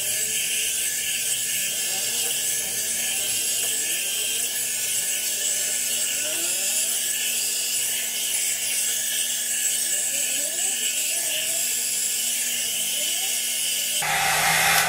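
Lizz rotating hot-air brush running: a steady whir of its fan motor with a rush of air and a low hum, switched off about a second before the end.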